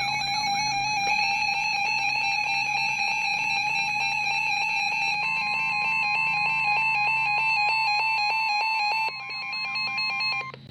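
Electronic weather-radio alert tones that precede the synthesized severe-weather warning: a steady electronic tone with a fast warble, joined about halfway through by a second steady tone near 1 kHz, both cutting off just before the warning is read.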